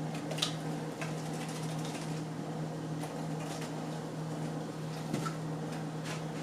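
A steady low electrical hum from a fan or appliance, with a few faint clicks and sticky pops from the slime being handled and kneaded.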